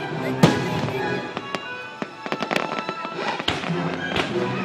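Fireworks bursting over music: one loud bang about half a second in, then a run of sharp cracks and pops in the second half as more shells go off.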